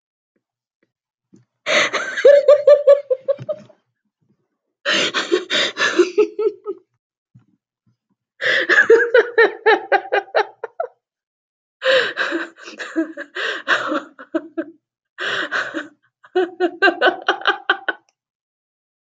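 A woman's uncontrollable laughter, coming in six bouts of rapid ha-ha pulses, each one to three seconds long, with short silent gaps between them.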